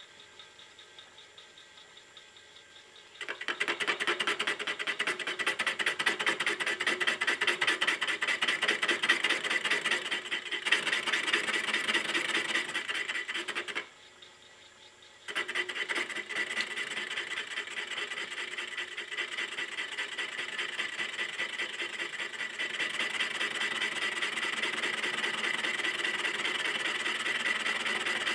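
Milling-machine spindle turning a boring tool inside the bore of a cast iron bearing block, the cutter scraping a light skim cut in a fast, even rhythm. It starts about three seconds in, stops for a second and a half near the middle, then resumes and grows a little louder toward the end.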